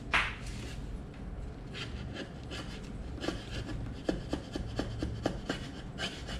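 Wood chisel paring down the braces on an acoustic guitar's top, thinning them. It makes a run of short scraping strokes that quicken to about four a second in the second half.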